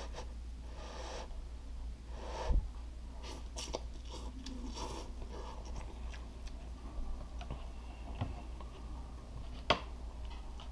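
A mouthful of cup ramen noodles being chewed, with a thump about two and a half seconds in. Near the end, chopsticks stir in the noodle cup with a sharp click against it, over a steady low hum.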